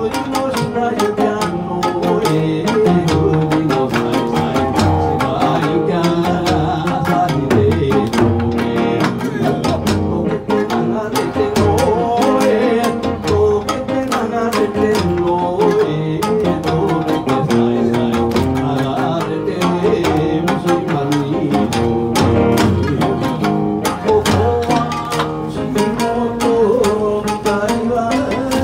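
Live Kawachi ondo bon-dance music over a PA: a singer chanting the ondo into a microphone over shamisen, with a steady, fast drum beat.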